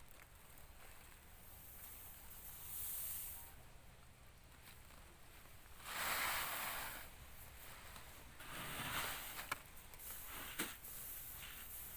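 Dried rice grain being scooped and poured, heard as three separate bursts of rustling hiss, the loudest about six seconds in, with a couple of sharp clicks near the end.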